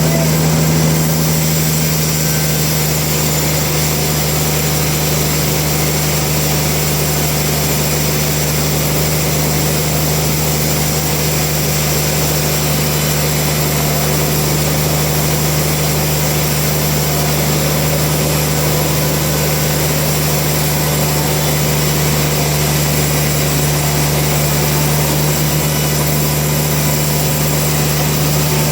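Sawmill machinery running steadily with a constant low hum and no cutting strokes or changes.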